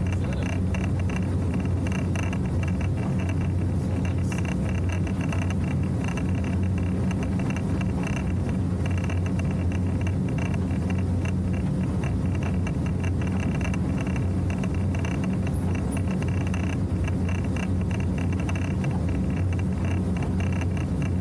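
Motorboat engine running steadily at cruising speed, a constant low drone, with the hull rushing through the water.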